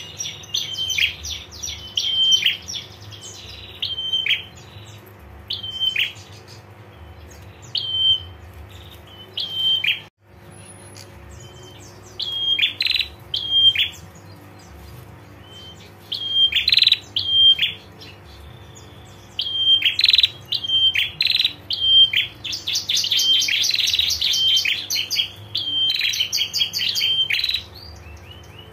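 Female prenjak giving its 'ngetir' call: short sharp chirps, each ending in a slurred note, repeated every second or two and broken by bursts of fast rattling trills. The call pauses for a moment about ten seconds in and comes back denser and louder from about twenty seconds in.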